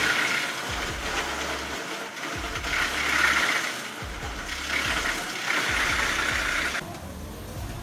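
Heavy industrial shredding machinery running, a mechanical grinding and rattling that swells in surges every second or two and eases off near the end.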